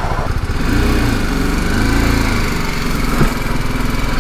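Motorcycle engine idling steadily as it warms up, its pitch rising and falling gently a couple of times.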